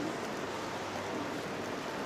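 River water rushing over rocks below: a steady, even rush.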